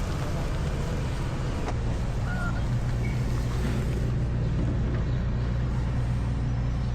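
Steady low drone of an engine running at constant speed.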